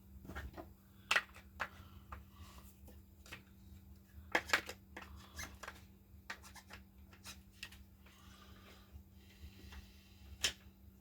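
Scattered light clicks and taps of the plastic clamshell housing and internal parts of a cordless impact driver being handled, with the sharpest clicks about a second in, around four and a half seconds in and near the end.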